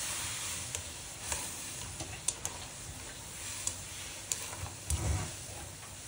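Shrimp boiling in water in a frying pan: a steady bubbling hiss, with a few light clicks of a utensil moving the shrimp in the pan.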